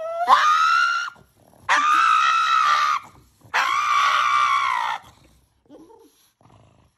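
Pug screaming in protest at having its nails clipped: three long, high cries of a second or so each with short breaks between, the first rising in pitch as it starts.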